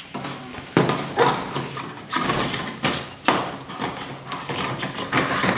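Plastic alphabet block knocking and scraping on a hard floor as a puppy noses and chews it, with several sharp knocks.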